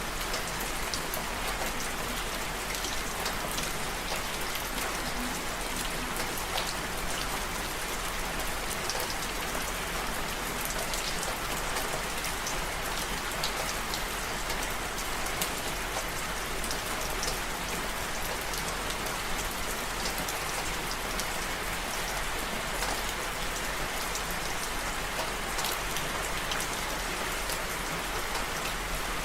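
Steady rain: an even hiss of falling rain with many scattered sharp ticks of single drops.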